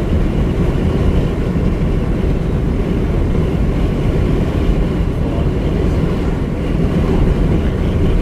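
Steady low rumble of a moving vehicle, road and engine noise, with no breaks or sudden events.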